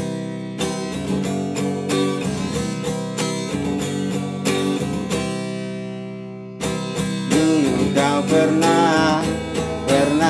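Acoustic guitar playing a song's intro with picked notes at a steady beat. A chord is left ringing and fades just after six seconds. The guitar comes back in at about seven seconds, and a wavering melody line joins over it.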